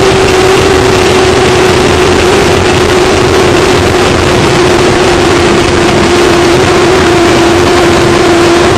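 Offshore racing powerboat's engines running flat out at speed: a loud, steady drone under a continuous rushing noise.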